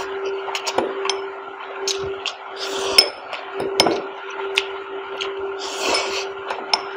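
Metal fork clinking and scraping against glass dessert bowls while noodles are scooped, with noisy slurps of spicy Maggi noodles about three and six seconds in. A steady low hum runs underneath.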